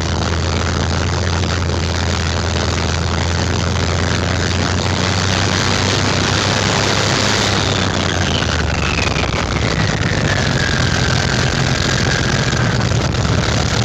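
Heinkel He 111 bomber's piston engine running, its low note moving higher about nine seconds in as the engine picks up speed. A high whine glides down in pitch from about seven to twelve seconds in.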